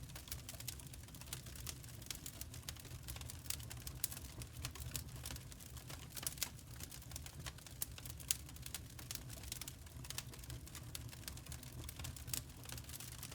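Crackling wood fire: irregular sharp pops and snaps over a steady low rumble.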